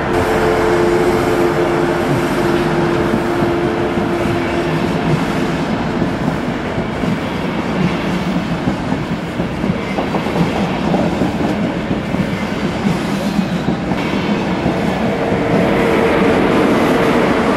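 A train moving along the station tracks, its wheels rumbling and clattering over the rails. A steady two-note hum sounds for the first few seconds, fades out, and one note returns near the end.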